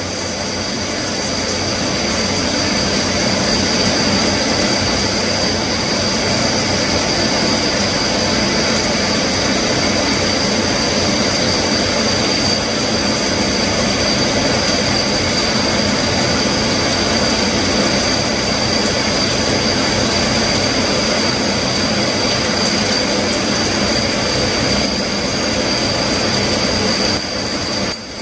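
CNC vertical milling machine cutting a brake caliper bracket under flood coolant: the spindle and cutter give a loud, steady high whine over an even hiss. The sound dips briefly near the end.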